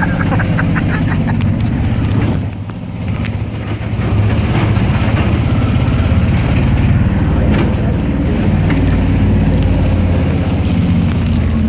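The engine of a small open taxi running as it drives, with traffic and road noise around it. It eases off about two and a half seconds in, then picks up again and runs on steadily.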